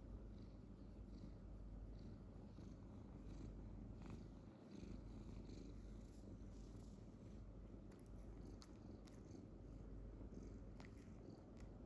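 Domestic cat purring steadily, a faint continuous low rumble, with a few faint clicks in the second half.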